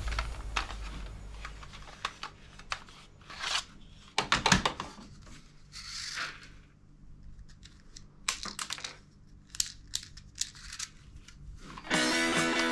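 Toy guns being handled: scattered sharp plastic clicks, rattles and short rustles. Background music comes back in near the end.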